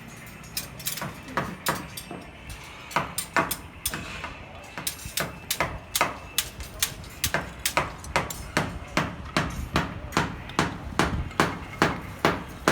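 Hand hammer striking again and again during work on a rebar reinforcement frame: sharp, irregular blows at first, then a steady run of about three blows a second.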